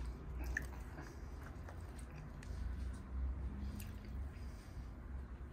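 Plastic fork picking at chicken over rice in an aluminium foil tray, making scattered small clicks and scrapes, with quiet chewing.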